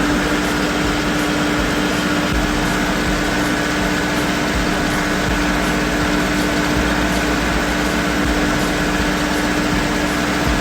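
Excavator engine running steadily, with a constant whine on one even pitch over it.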